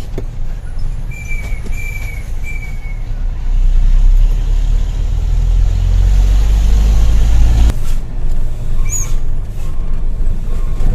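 Diesel engine of a Hino tronton dump truck running on the road, a heavy low rumble that grows louder about three and a half seconds in and drops off suddenly near eight seconds in. A few short high chirps sound early on and again near the end.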